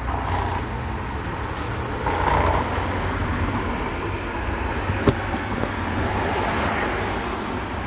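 Road traffic going by, a steady low rumble that swells a little about two seconds in, with one sharp click about five seconds in.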